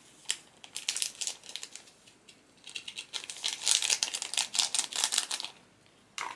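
Plastic sachet crinkling and crackling rapidly as carbonara seasoning powder is shaken out of it, in two bouts, the second longer and louder.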